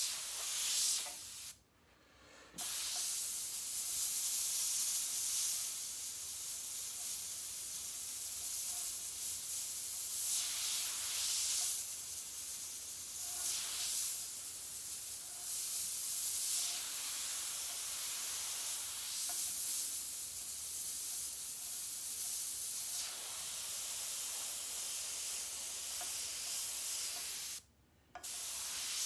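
An airbrush hisses as it sprays paint. The air swells and eases as the trigger is worked, and cuts out briefly twice, about two seconds in and near the end.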